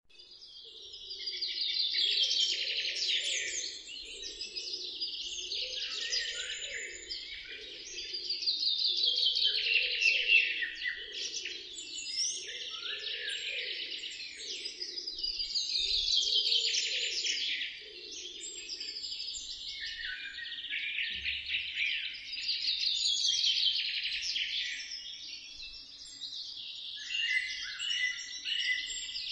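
Songbird singing long, busy, trilling phrases that come back about every six to seven seconds, with a faint lower hum pulsing beneath for most of the time.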